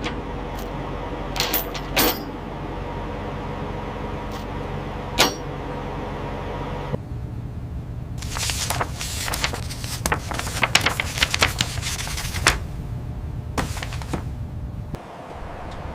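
Heavy tie-down chains clinking and rattling against steel over a steady low machine hum; the clinks are scattered at first and come thick and fast from about halfway through, and the hum drops away near the end.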